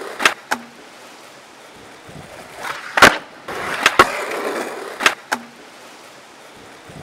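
Skateboard wheels rolling on concrete with a string of sharp clacks from the board popping, hitting the ledge and landing. The loudest clack comes about three seconds in, and two pairs of clacks come shortly after the start and near five seconds.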